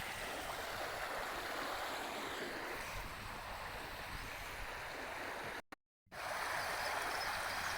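A stream running steadily, a constant rushing of water. It cuts out completely for a moment about six seconds in, then comes back a little louder.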